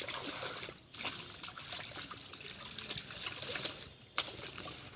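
Pond water trickling and splashing unevenly as laundry is rinsed by hand in it.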